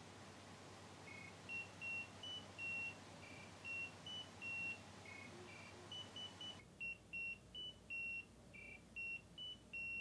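Pebblebee Finder Bluetooth tracker ringing, buried in a laundry basket of clothes: a faint repeating tune of short high beeps that starts about a second in.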